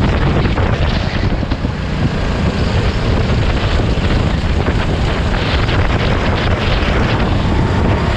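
Sodi RT8 kart's 390cc single-cylinder four-stroke engine running at speed, with heavy wind buffeting the microphone.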